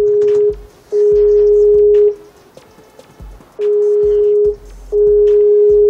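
Outgoing call ringing tone, the steady ring heard while a phone call rings out unanswered. It comes in pairs of rings, about a second each with a short gap between them, and a longer pause between the pairs.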